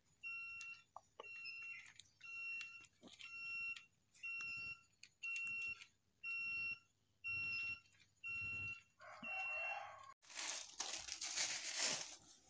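Electronic alarm beeping steadily, about one high-pitched beep a second, which stops about ten seconds in. Near the end comes about two seconds of loud rustling noise.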